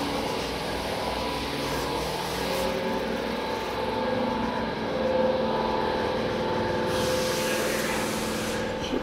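Toyota Avalon V6 engine running steadily with no misfire, which the mechanic takes to mean the fault was a carbon-fouled spark plug.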